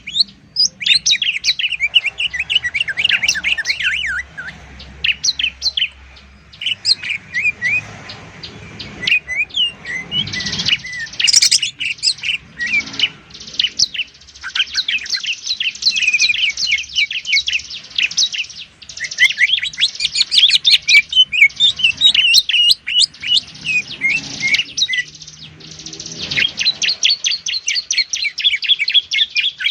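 Songbirds singing in long, rapid runs of high chirps and trills with only short breaks. This is a bird-tutor (masteran) recording pairing the greater green leafbird (cucak ijo) and the bar-winged prinia (ciblek) in fast, continuous 'ngebren' song.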